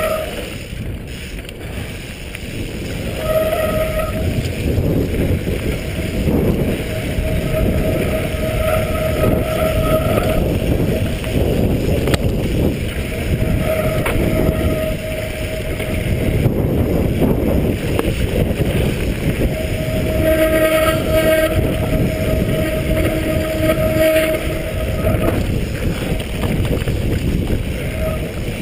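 Mountain bike descending a dirt singletrack: tyres rumbling over the dirt and wind buffeting the camera microphone. A steady whine from the bike comes and goes several times.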